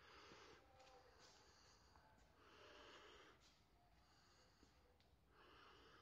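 Near silence: faint room tone with three soft, short breathy puffs, at the start, in the middle and at the end.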